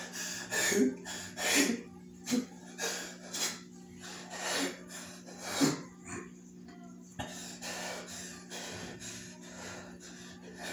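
A person breathing heavily in short, gasping breaths, several in quick succession and then fewer, over a steady low hum.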